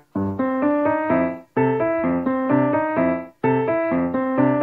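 Background music on a piano-like keyboard: a bright melody of quick notes in short phrases, each cut off by a brief gap about every one and a half to two seconds.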